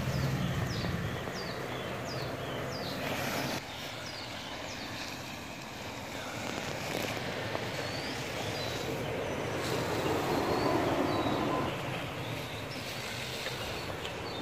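Toyota Land Cruiser's 4.7-litre V8 engine running as the vehicle crawls through snow, growing louder about ten seconds in and then easing off.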